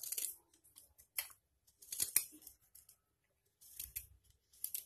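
Small kitchen knife cutting pieces off a knob of fresh ginger held in the hand: a handful of short crisp cuts at irregular intervals, the pieces dropping into a steel mixer-grinder jar.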